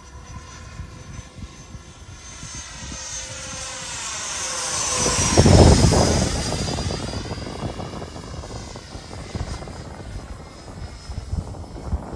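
Freewing F-18 90 mm electric ducted fan jet making a fast flyby. The fan whine grows louder, peaks about five and a half seconds in as the jet passes, drops in pitch, and fades. Wind buffets the microphone throughout.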